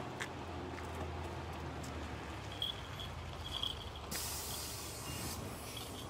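A bus engine running low and steady, with a burst of hissing air from its air system about four seconds in that lasts just over a second. A few faint high chirps come shortly before the hiss.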